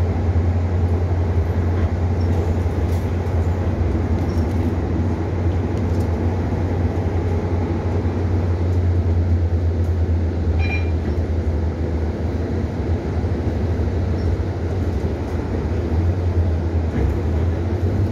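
Steady low engine hum and road noise heard from inside a moving city bus, with a brief high tone about ten seconds in.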